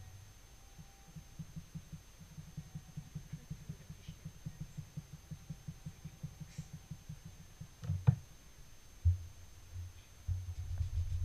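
Rapid soft low thuds, several a second, of a stiff dye brush being worked at the dye tray and then dabbed onto cloth, carried through the table. A single sharp knock comes about eight seconds in.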